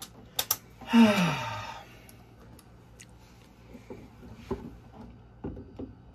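A person's loud sigh about a second in, falling in pitch, followed by a few faint scattered clicks and taps of parts and tools being handled.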